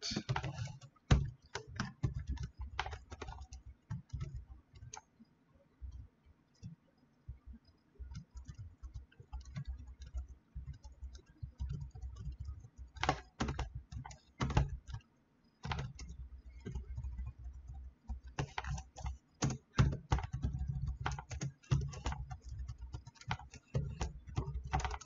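Typing on a computer keyboard: irregular runs of keystrokes, with a pause about five to eight seconds in.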